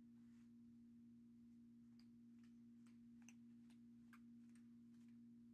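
Near silence: room tone with a steady low hum and a scattering of faint ticks in the second half.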